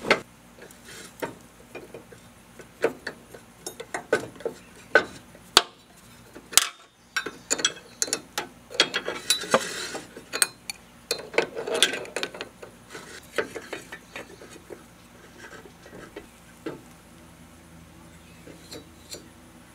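Irregular metallic clicks and clinks of a wrench working the nut on top of a Husqvarna riding-mower deck's spindle pulley, in uneven bursts, thinning out over the last few seconds.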